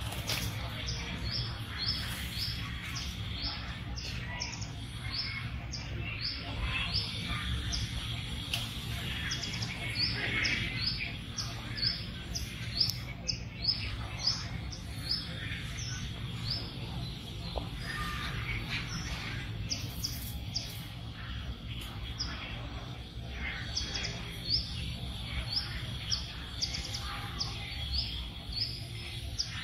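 A bird chirping, a short high note repeated about twice a second in runs with brief pauses, over a steady high whine and a low rumble of background noise.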